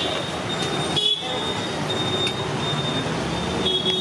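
Busy street traffic: vehicle engines running steadily, with several short horn toots.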